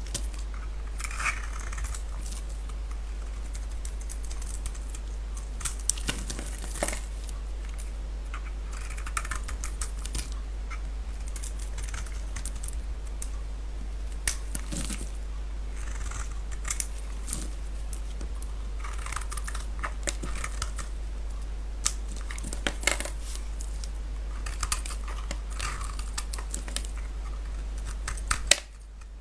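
A knife cutting through bars of soap: short crisp scraping cuts and sharp cracks and clicks as pieces break away, over a steady low hum. The sound changes abruptly near the end.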